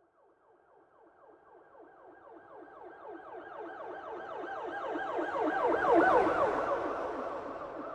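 Police car siren in a fast, rapidly repeating yelp. It grows steadily louder from near silence, is loudest about six seconds in, then fades as the vehicle passes and moves away.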